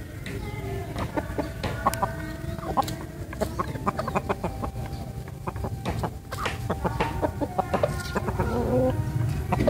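Chickens clucking, a fighting-cock rooster and a black hen, in a string of short repeated calls.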